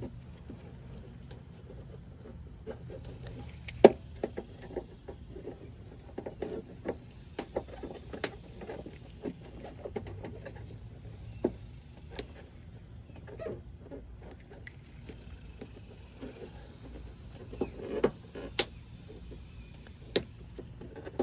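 Two flathead screwdrivers prying at plastic retaining clips on a truck's fender, with irregular clicks, scrapes and taps of metal on plastic and several sharper snaps.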